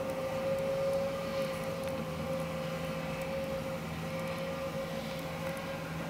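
A vehicle engine running steadily, with a constant high whine over a low hum.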